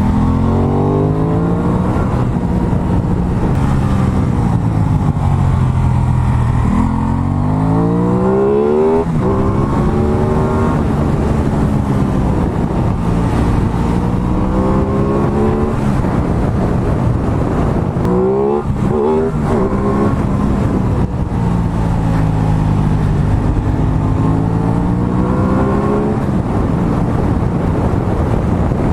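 Aprilia Tuono 660's parallel-twin engine heard from on board, revving up and dropping back again and again as the bike accelerates and slows through bends. Pitch climbs sharply about eight seconds in and again around nineteen seconds.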